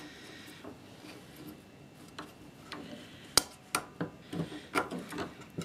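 Small metal clicks and light taps of a thin screwdriver picking at the drive shaft's key and washer inside a belt sander's gear housing. The clicks are scattered and begin about two seconds in, with one sharper click near the middle.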